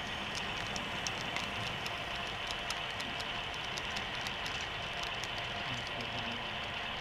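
HO scale model freight train of loaded coal hoppers rolling past close by, wheels clicking irregularly over the track joints above a steady rolling hum.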